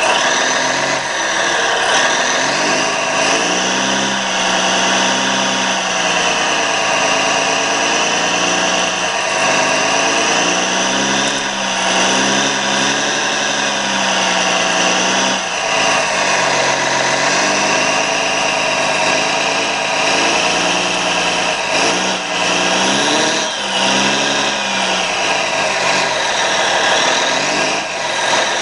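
Radio-controlled 1:16 scale hydraulic excavator running, its sound module playing a diesel engine sound that revs up and settles back repeatedly as the machine is worked.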